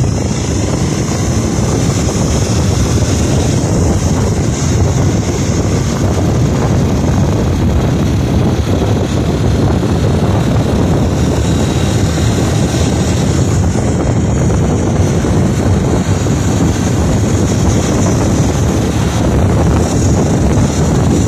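Motorbike running at a steady pace while riding, with wind noise rumbling on the microphone.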